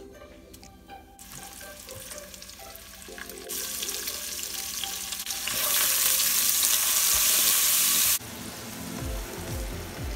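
Sliced red onions sizzling as they fry in hot oil in a pot, stirred with a wooden spoon. The sizzle builds in two steps and gets loud, then cuts off abruptly near the end.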